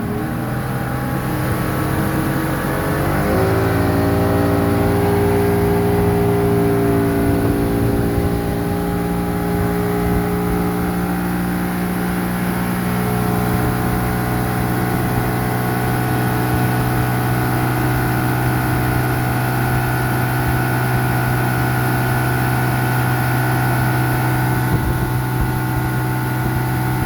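Boat engine throttled up, its pitch rising over the first few seconds, then running steadily at speed.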